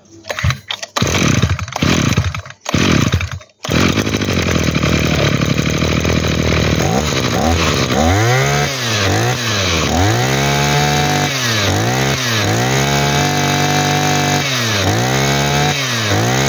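A 23cc two-stroke brush cutter engine, started on the pull cord: a few short pulls, then it catches and runs about three and a half seconds in. After idling briefly it is revved up and let fall back repeatedly, roughly once a second, with a few longer high-rev holds.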